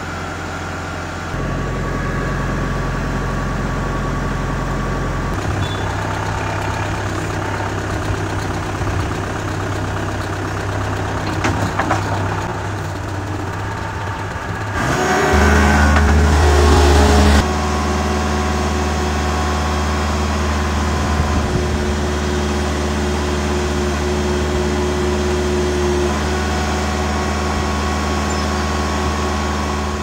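Bobcat S450 skid steer's diesel engine running steadily, its speed shifting a few times, and revving louder for a couple of seconds about halfway through before settling back.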